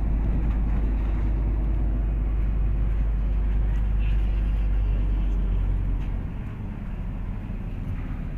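MAZ-203 city bus heard from inside while moving: a steady low engine and road rumble that drops in level and changes pitch about six seconds in.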